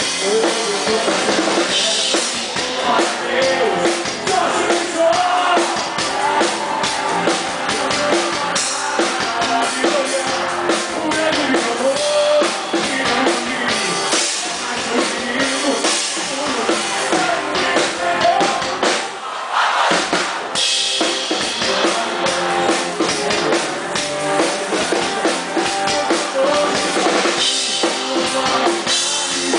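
Live band music on stage, the drum kit loud and close, with a melody line over a steady beat.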